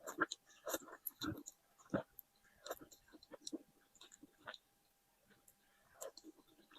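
A person chewing food close to the microphone: irregular wet mouth smacks and clicks, several a second, pausing briefly about five seconds in.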